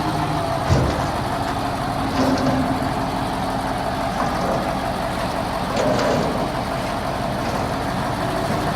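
Dump truck engine running steadily, with a single sharp knock about a second in.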